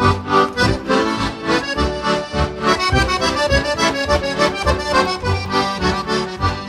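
Heligónka, the Slovak diatonic button accordion, playing an instrumental break of a lively folk tune between sung verses, with a running melody over bass notes pulsing on a steady beat.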